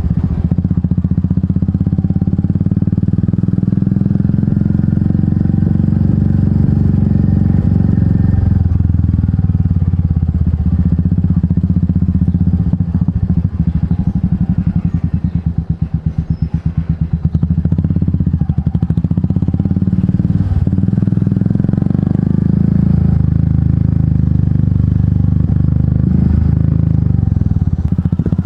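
Royal Enfield Meteor 350's single-cylinder engine running through an aftermarket exhaust while riding, its low thudding exhaust note steady. About halfway through the throttle eases off and the individual exhaust pulses stand out, then the engine pulls up again.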